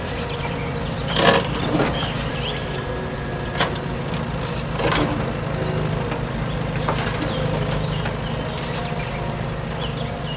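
Steady heavy-machinery engine drone of an excavator at work, with short hissing bursts every couple of seconds and an occasional click.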